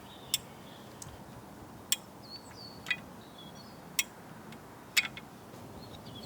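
A series of sharp, short clicks, about one a second.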